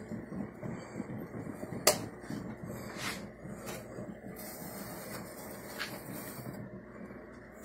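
Stovetop coffee percolator perking: irregular bubbling and gurgling, with a sharp click about two seconds in and a spell of hiss in the second half.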